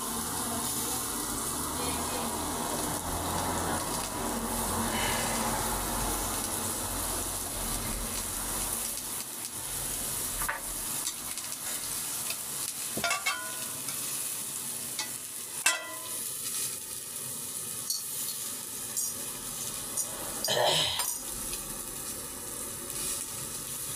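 Green peppers and tomato slices sizzling on an electric griddle, a steady hiss, with a few sharp clicks in the second half.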